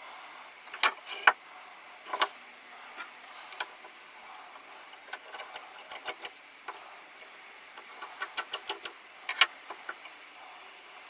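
Sharp metal clicks and clinks from a Stanley Bailey No.5 hand plane being taken apart, as the blade assembly is handled against the cast-iron body and a screwdriver is worked at the frog. The clicks come singly and in short clusters, with a quick run of about half a dozen near the end.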